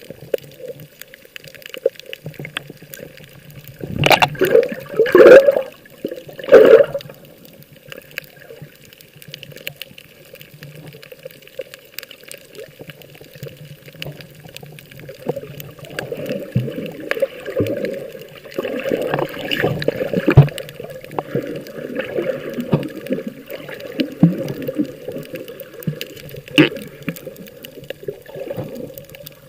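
Water sloshing and splashing without a break, with the loudest splashes about four to seven seconds in.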